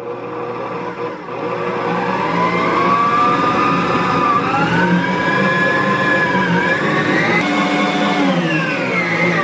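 Electric stand mixer's motor running with its wire balloon whisk beating cake batter. The whine climbs in pitch over the first couple of seconds as it speeds up, wavers as the batter drags on the whisk, and drops near the end as it slows down.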